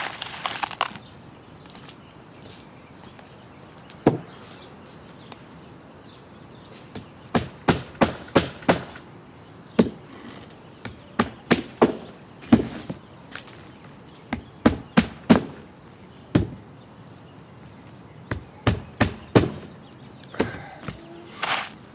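Hammer driving roofing nails through asphalt shingles: sharp knocks in quick runs of four to six strikes, the runs a few seconds apart, with a few single knocks between.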